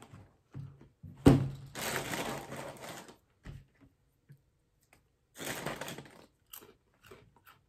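Cheese crackers being crunched and chewed close to the microphone, with the plastic liner inside the cracker box crinkling as a hand reaches in. A sharp crack about a second in is the loudest sound, and short crunches follow near the end.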